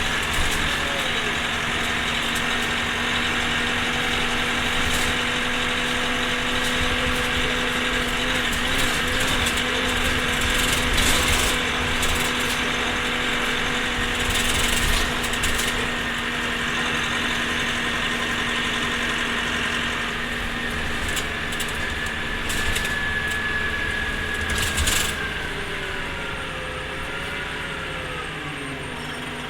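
Orion V transit bus running, with a steady whine held for most of the time and scattered clicks and rattles; after about 25 seconds the whine falls and wavers in pitch.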